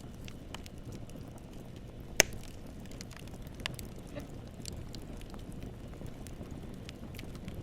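Wood campfire burning: a steady low rustle of flames with scattered small crackles as the wood splits, and one loud sharp pop a little over two seconds in.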